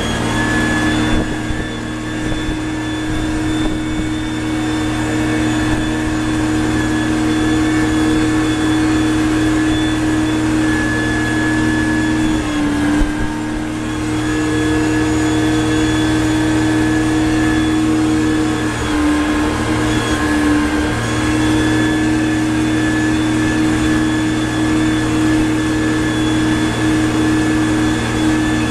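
John Deere loader's engine running steadily under way, heard from inside the cab; its note dips briefly a couple of times, about halfway through and again about two-thirds through.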